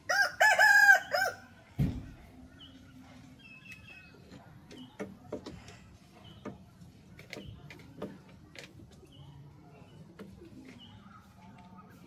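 Rooster crowing once, a short loud crow broken into a few segments in the first second and a half. A sharp thump follows, then faint scattered clicks and short high calls.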